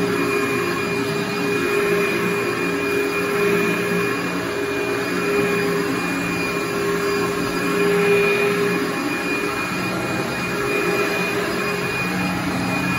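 Upright vacuum cleaner running steadily as it is pushed back and forth over carpet, its motor giving a constant drone with a steady whine.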